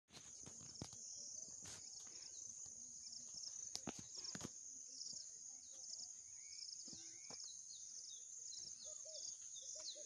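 Steady high-pitched insect chorus with a repeating chirping pattern, joined near the end by short bird calls, and a few sharp clicks in the first half.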